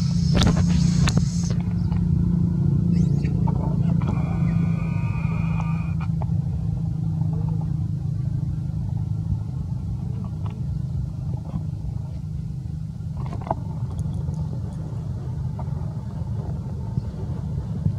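A steady low rumbling hum, slowly getting a little quieter, with a short higher-pitched sound about four seconds in.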